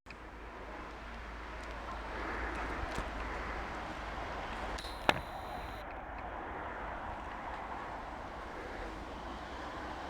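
Wind rumbling on the microphone over a steady outdoor hiss, with one sharp snap about halfway through.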